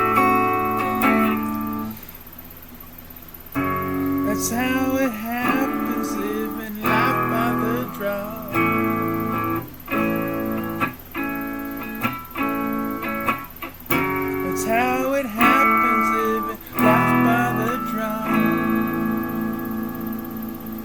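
Solo guitar playing an instrumental passage with no singing: plucked chords and blues licks with bent notes, ending on a chord left ringing and fading.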